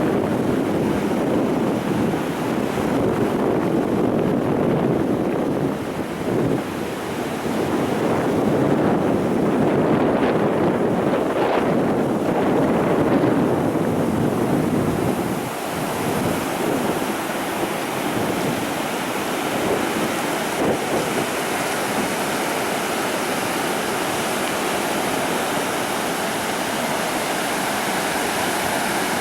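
Ocean surf breaking on a beach, with wind buffeting the microphone. About halfway through the low rumble drops back and a steadier, higher hiss of wash takes over.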